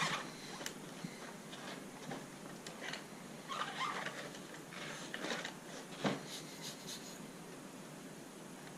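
Scattered light clicks and rustling from handling an RC rock crawler and its packaging, with one louder thump about six seconds in.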